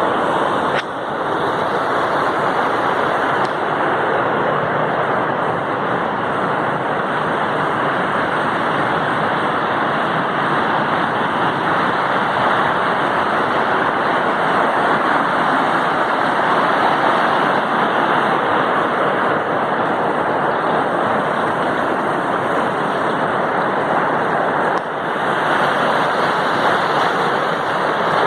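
Waterfall: a steady, loud rush of falling water, dipping briefly in level about a second in and again near the end.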